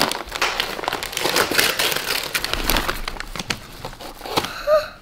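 Shiny foil Christmas wrapping paper crinkling and tearing as a present is unwrapped by hand, dying down about four seconds in.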